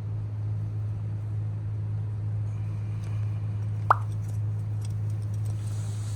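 A steady low hum with one short, sharp rising blip about four seconds in.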